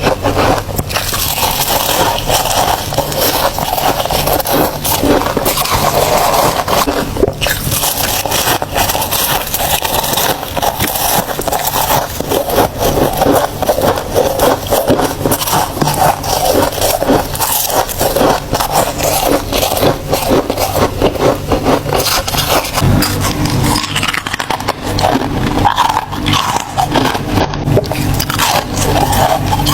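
Close-up crunching and chewing of ice, a steady run of loud crackling bites.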